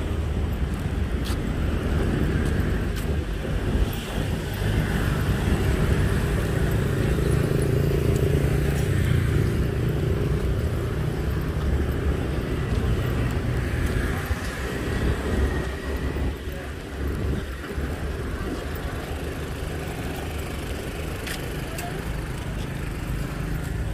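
Street traffic: a steady mix of passing cars and motorbikes running along the road, somewhat louder in the first half.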